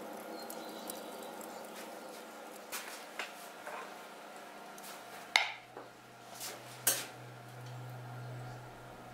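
Metal clinks and clanks of smithing tools against an anvil: a few light clinks, then two sharp, ringing clanks about a second and a half apart in the second half, over a steady hum.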